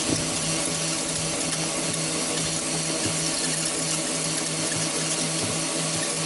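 Homemade box shredder's power-tool motor running steadily with its spinning blade grinding and battering a toy apple: a constant hum under a hiss of shredding, with a few irregular knocks.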